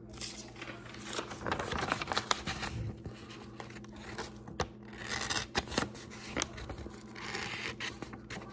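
Broadhead blade stropped backwards across a sheet of paper: irregular scraping and rustling of paper, with a few sharp ticks partway through.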